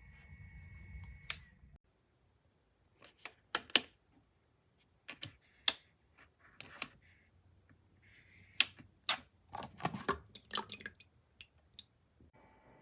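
A steady hum stops with a click, then a run of irregular sharp clicks and taps, some in quick pairs, and a steady hum comes back near the end.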